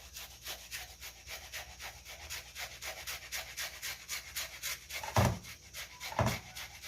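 Onion being grated by hand on a metal grater, a rasping scrape repeated at about five strokes a second. Two dull knocks come about a second apart near the end.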